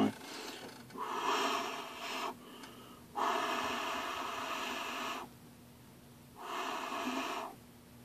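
A person blowing three long puffs of breath, the middle one the longest.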